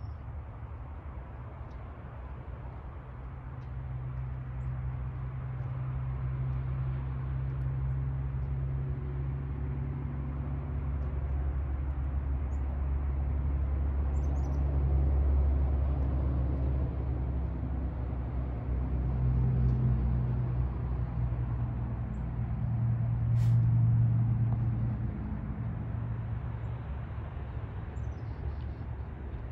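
Low rumble of distant motor engines, swelling and fading several times, with a few faint bird chirps above it and one sharp click about three-quarters of the way through.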